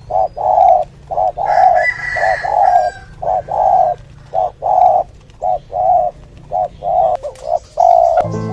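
Spotted dove cooing: a long run of low cooing notes, some short and some drawn out, with brief pauses between phrases. A fainter, higher bird call sounds behind it for about a second and a half, and piano music comes in near the end.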